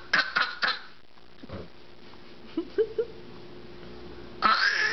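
A baby's fake coughs and squeals: a quick run of short sharp coughs right at the start, a couple of small coos midway, and a loud harsh squeal near the end.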